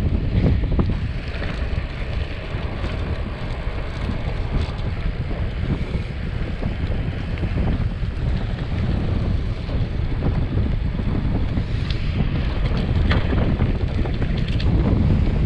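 Wind buffeting the microphone of a camera on a moving road bike: a loud, uneven low rumble, with a few sharp clicks or rattles near the end.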